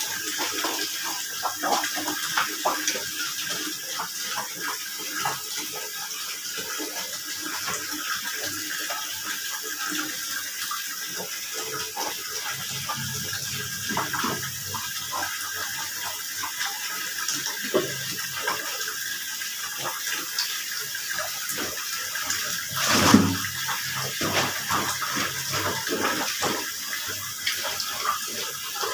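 A soaked blanket being hand-washed on a concrete floor: a bar of soap scrubbed over the wet fabric, with water sloshing and many short scrubbing scrapes, and one louder wet slap about 23 seconds in.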